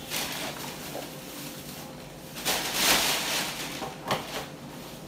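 Plastic bags rustling and crinkling as nylon-wrapped packets of pap are handled and dropped into a plastic sack, loudest about halfway through, with a short knock about four seconds in.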